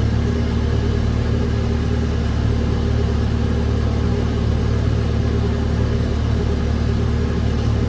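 Engine running steadily at an even speed, a deep constant rumble.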